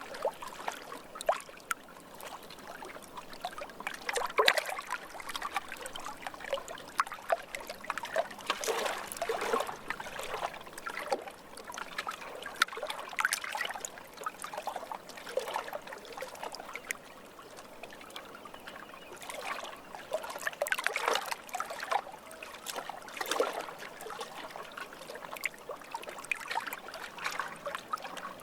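Lake water lapping and trickling in many small, irregular splashes.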